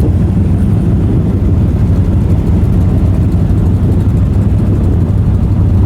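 Off-road race vehicle running steadily, a loud low rumble of engine and ground noise that holds at an even level.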